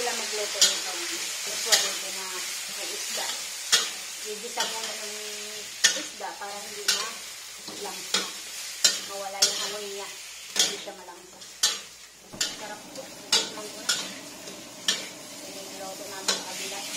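Pieces of fish sizzling in oil in a stainless steel wok while a metal spatula stirs them, scraping and knocking against the wok with sharp irregular clicks about once a second.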